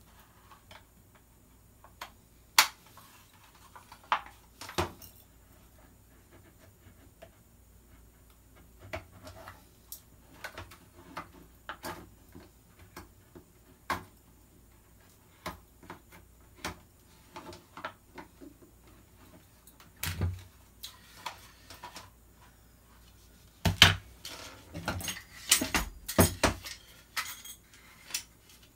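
Hard plastic and metal rifle parts being handled on a workbench: scattered clicks and knocks, with a denser run of clatter near the end as a handguard is set down.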